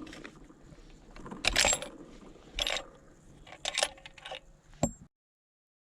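Metallic clicks and clinks of a bolt-action rifle being handled, typical of working the bolt and clearing the gun after a string of shots: four separate bursts and a sharp click near the end. The sound cuts off abruptly about five seconds in.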